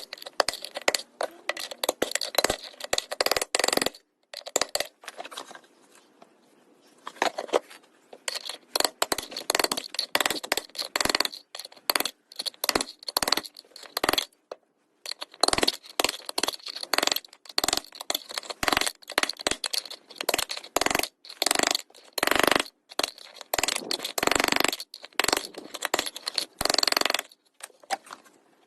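Hammer blows on a steel socket used as a drift against a seized front-loading washer drum bearing's outer race, driving the race out. Rapid metallic strikes with a clinking ring, in runs broken by short pauses about 4 s and 6–7 s in; the socket is being deformed by the blows.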